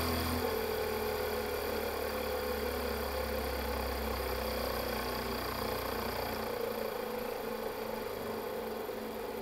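Rotor test rig with active magnetic bearings running at speed: a steady mechanical hum. A higher steady tone comes in about half a second in, and the deepest part of the hum drops away about two-thirds of the way through.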